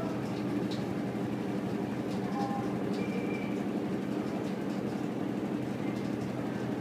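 Samsung top-loading washing machine with its drum spinning: a steady motor and drum hum with a few faint ticks.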